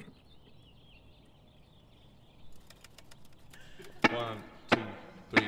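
Faint quiet ambience, then a count-in of three sharp, evenly spaced beats about two-thirds of a second apart, each leaving a short pitched ring, leading into the band's song.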